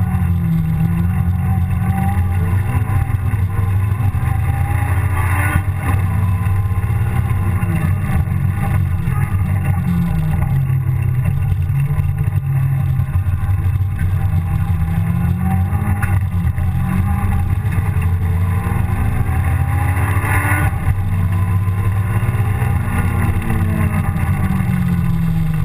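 Honda S2000's four-cylinder engine heard from inside the cabin during a sprint run, revs repeatedly climbing under throttle and falling away under braking. Two brief knocks come about five and a half and twenty seconds in.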